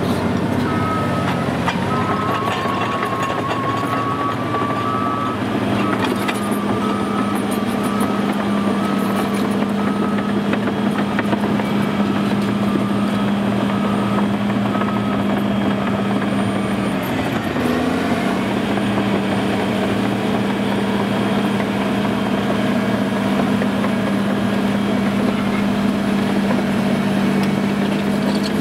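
Caterpillar D6R bulldozer's diesel engine running steadily under load as it pushes crushed stone, with its tracks clanking. The engine note dips briefly about two thirds through and recovers. A repeating beep sounds during the first third.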